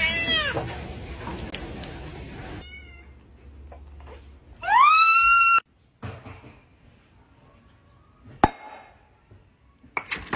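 Domestic cat meowing: a short cry at the start, then one loud meow that rises in pitch and holds for about a second around halfway. Near the end there is a single sharp pop as a glass bottle's cap is opened.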